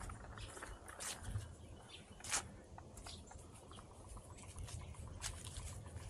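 Dry fallen leaves crunching and rustling underfoot as people and dogs walk over them, with scattered sharp crackles, the loudest about a second in and a little over two seconds in.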